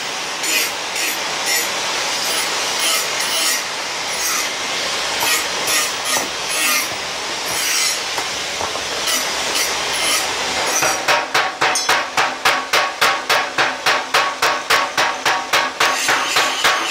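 Steady noisy hiss with irregular hammer knocks on hot steel. About two-thirds of the way in, a flywheel-driven mechanical power hammer starts pounding a red-hot steel bar in a fast, even run of about three blows a second.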